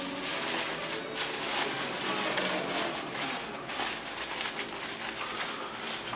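Aluminium foil crinkling and rustling as it is pressed down and crimped over a disposable aluminium foil pan.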